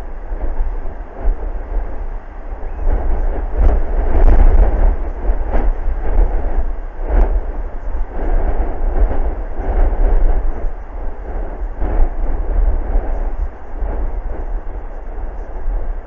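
Strong wind buffeting the microphone: a heavy rumble that swells and drops with the gusts, with a few brief thumps from the strongest gusts.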